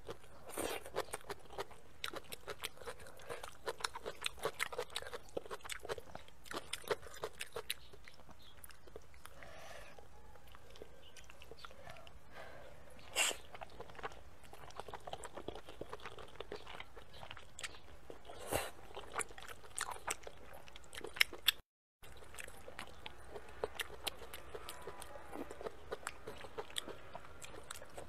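Close-miked eating: continuous wet chewing and crunchy bites of a spicy dish of sticky potato noodles, chicken feet and green chili peppers, with a few louder single bites.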